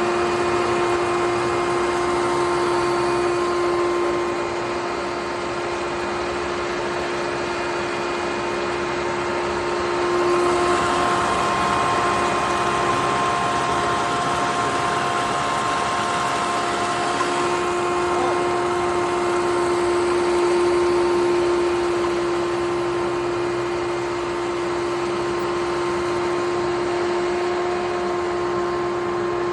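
Hoover Twin Chamber bagless upright vacuum with a 6.9-amp motor, running steadily with a humming whine. Its level swells a little now and then.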